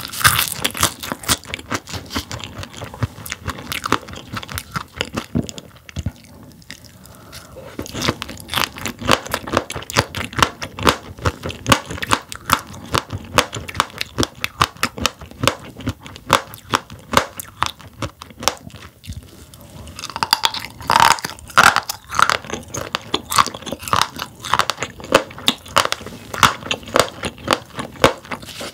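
Close-miked chewing of sailfin sandfish roe, the firm eggs crunching and popping in rapid clicks. The chewing goes quieter for a moment about six seconds in and comes back louder around twenty seconds in.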